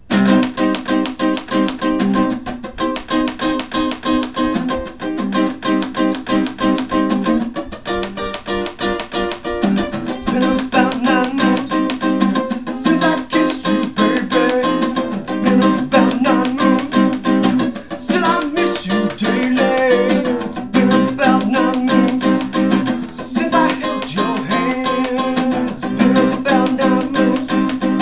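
Acoustic guitar strummed in a steady rhythm, with a man singing over it from about ten seconds in.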